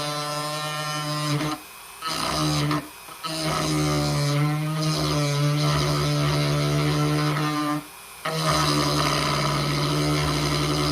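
Electric power tool running steadily at a fixed pitch, broken by three abrupt short gaps.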